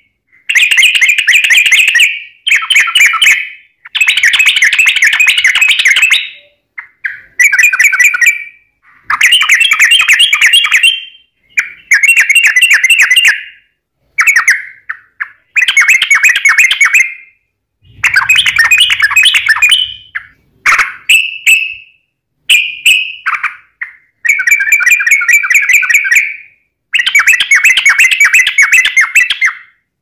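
Yellow-vented bulbul singing its long, rapid chattering song in repeated bouts of one to two seconds each, with short pauses between them, about a dozen in all.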